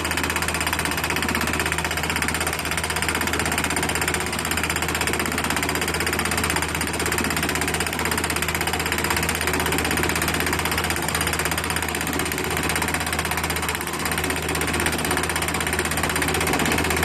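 Fully hydraulic anchor drilling rig running steadily, its engine humming low under a fast, continuous hammering rattle from the drill.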